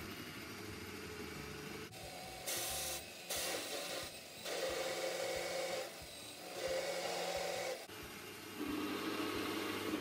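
Bosch PBD 40 bench drill press running, its hole saw cutting into a board in about five stretches of a second or so, with short pauses between where only the motor hum remains.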